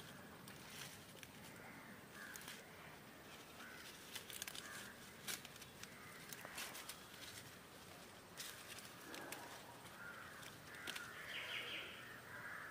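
Quiet outdoor ambience with a few faint bird calls, most of them near the end, and scattered light clicks and knocks.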